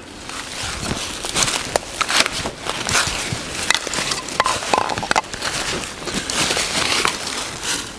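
Footsteps crunching through dry leaves and twigs: irregular crunching and crackling.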